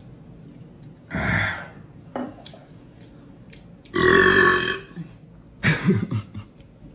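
A man burping loudly three times. The middle burp, about four seconds in, is the loudest and longest at nearly a second.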